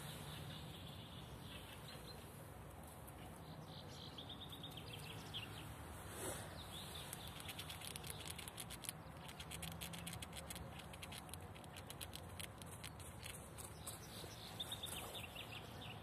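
Small birds chirping in short repeated phrases, with a spell of rapid faint clicking through the middle.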